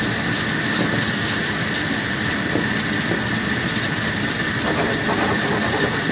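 Steady rushing noise of a small pan of water at the boil with eggs in it, with a few faint knocks.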